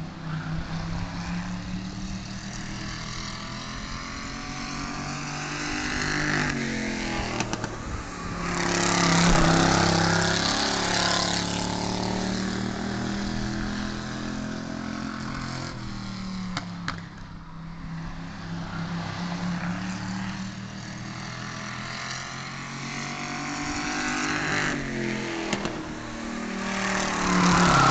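A single race car's engine running hard around a short oval track, its pitch rising and falling through the turns. It grows loud twice, about nine seconds in and near the end, as the car passes close, and fades between as it goes down the far side.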